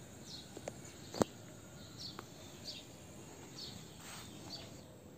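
Outdoor ambience: short, high, falling chirps repeat about once a second over a faint hiss. A single sharp click comes about a second in.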